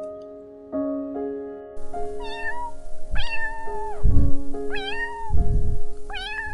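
A cat meowing about four times, starting about two seconds in, each meow rising and then falling in pitch, with low rumbling thuds between the calls. Background music plays throughout.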